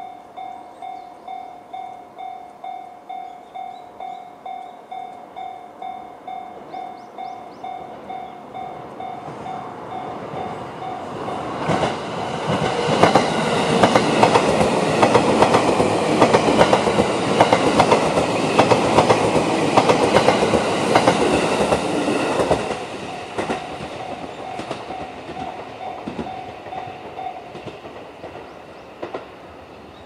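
Japanese level-crossing warning bell, JR's standard electronic tone, dinging in a steady rhythm. A JR 651-series electric express train passes loudest from about twelve seconds in for some ten seconds, its wheels clattering over the rail joints. The bell goes on after the train has gone and stops shortly before the end.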